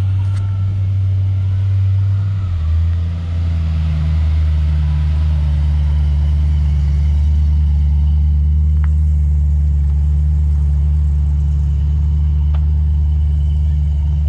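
Engines of cars driving slowly past at low revs: a steady, deep, loud exhaust rumble, its pitch settling slightly lower about two and a half seconds in.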